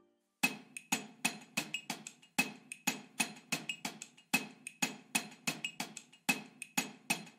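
Dry clicking percussion in an uneven rhythm of about three to four strokes a second: a sparse percussion passage in the background music.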